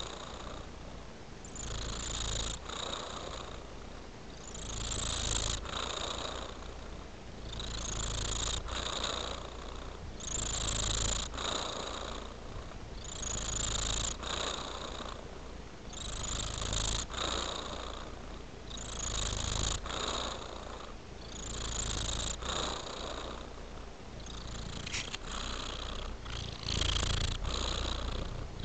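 Domestic cat purring close to the microphone, a continuous low rumble that swells and fades with each breath, about every three seconds.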